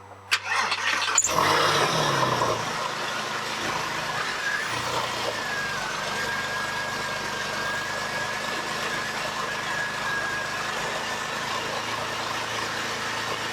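Porsche 996 flat-six engine cranked over and catching after about a second, running up briefly and then settling into a steady idle. The throttle body is only partly seated, and a thin steady whistle sits over the idle for several seconds in the middle.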